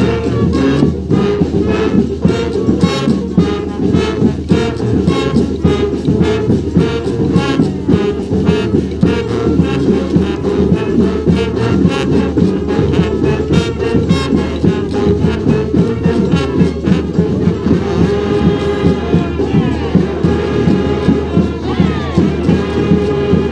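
Street brass band playing a New Orleans-style brass band tune over a steady drum beat. From about three-quarters of the way through, the horns hold long notes, with some sliding pitches near the end.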